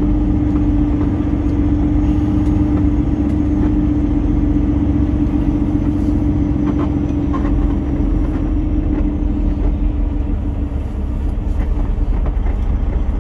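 Peterbilt 389 semi truck's diesel engine running as the truck rolls slowly across a yard, heard from inside the cab: a steady low rumble with a droning tone that weakens after about eight seconds.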